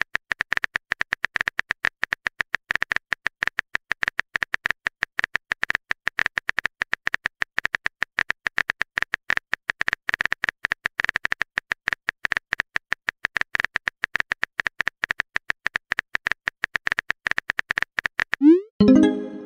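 Rapid, even clicking of a texting app's keyboard-typing sound effect while a message is being typed. Near the end, a short rising tone cuts in, the app's sound as the message is sent.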